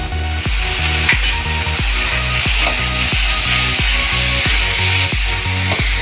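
Background music with a steady beat, about three hits a second, over the hiss of masala frying in oil.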